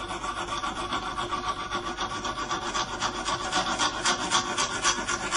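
A file rasping in quick, steady strokes across the bevel of a hoof-trimming knife, setting the sharpening angle on the blade.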